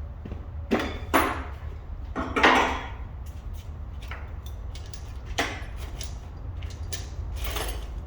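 Metal hand tools and parts clinking and clanking as they are handled, in a handful of separate sharp strikes with the loudest about two and a half seconds in, over a steady low hum.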